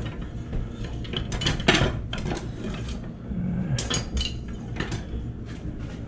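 Metal kitchen utensils clinking and rattling as they are rummaged through, in two clusters of sharp clinks: one a little over a second in and another around four to five seconds in.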